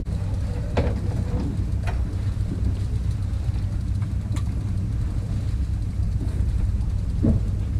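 Steady low rumble of a charter fishing boat's engine, with a few faint clicks over it.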